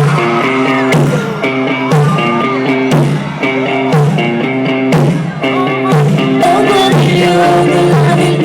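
A pop-rock song played live by a band with a steady beat, and a woman singing the lead.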